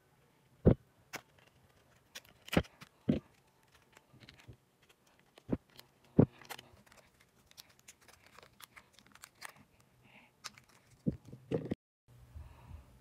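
Handling noise: irregular clicks, taps and light rustling as a plastic-and-card lip balm blister pack is handled and opened, with a few sharper knocks.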